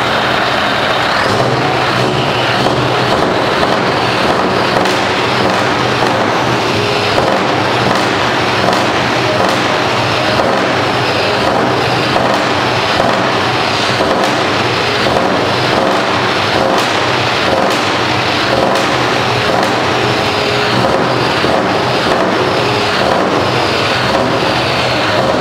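Scania R560's 16-litre V8 diesel running through tall straight chrome exhaust stacks: a loud, steady rumble with repeated sharp crackles.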